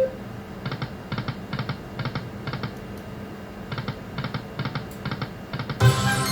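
Lightning Link video slot machine playing its reel-stop sounds over two spins: each spin gives five short clicks in quick succession as the reels stop one after another. Near the end comes a louder, brighter burst of chiming tones.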